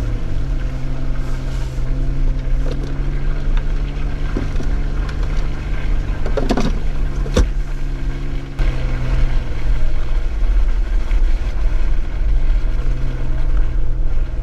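Jeep Wrangler engine running steadily while driving a dirt trail, over a low road rumble. A few knocks come about halfway through, and the engine gets a little louder past the middle.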